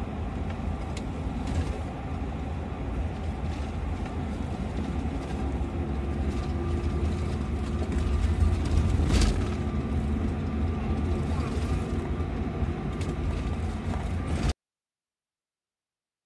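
Cabin noise of a moving sleeper bus: a steady low engine and road rumble, with a brief knock about nine seconds in. It cuts off abruptly to silence near the end.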